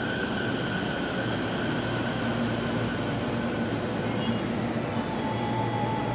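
Electric commuter train at a station platform: a steady rumble with a high whine that fades over the first few seconds, then thin high tones come in about four seconds in.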